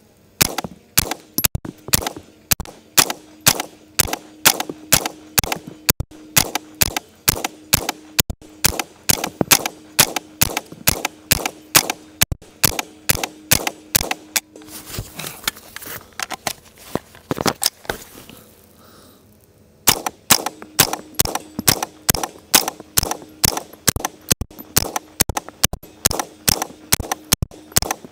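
Smith & Wesson M&P 15-22 semi-automatic .22 Long Rifle rifle fired rapidly, about three shots a second. There is a pause of about five seconds in the middle, with one shot in it, where a 30-round magazine is swapped, before rapid fire resumes.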